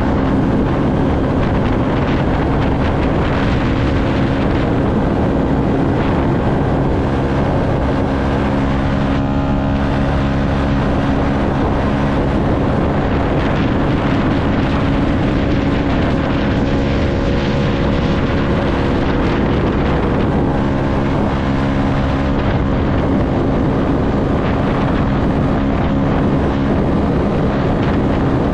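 Yamaha MT-125's single-cylinder four-stroke engine running under way at a steady, nearly unchanging engine speed.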